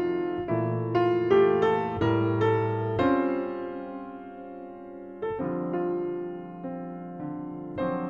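Background piano music: a run of struck notes in the first three seconds, then held chords that fade, with a new chord about five seconds in.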